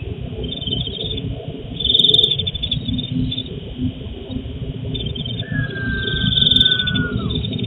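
Crickets chirping at night, heard through a CCTV camera's narrow-band microphone over a steady low rumble of background noise. From about two-thirds of the way in, a long held tone slides down in pitch over about two seconds.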